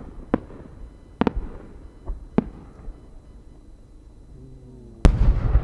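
Fireworks: a few sharp pops from the small bursts on the rising 10-gou shell's ascent, then, about five seconds in, the loudest deep boom of the shell's main four-core changing chrysanthemum burst, rumbling on after it.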